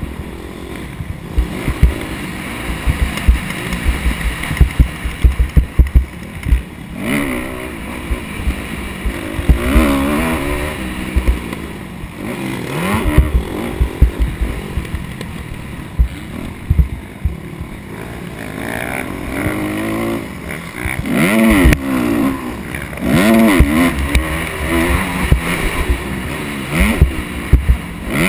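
Motocross dirt bike engine revving up and falling off again and again as it is ridden over the track, heard from a helmet-mounted camera, with repeated low thumps and buffeting.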